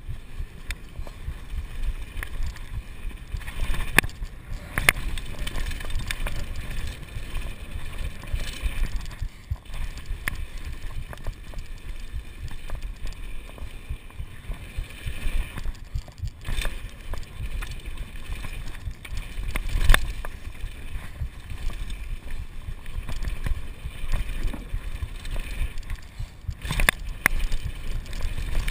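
Kona Supreme Operator downhill mountain bike ridden fast down a dirt trail: tyres rolling over dirt and stones, with wind buffeting the camera's microphone as a steady rumble. Sharp knocks and rattles from the bike over bumps and landings come now and then, the loudest about two-thirds of the way through.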